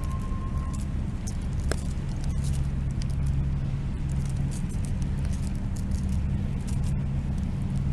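A steady low engine drone, with scattered faint ticks and crackles above it.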